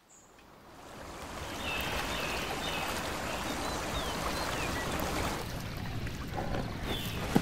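Steady ambience of running water, like a stream, fading in over the first couple of seconds, with a few faint high chirps over it.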